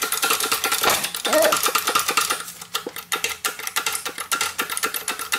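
Hydraulic shop press forcing a worm gear and bearing race onto a Massey Harris steering shaft: a rapid mechanical clatter of clicks over a steady whine, easing briefly about halfway through.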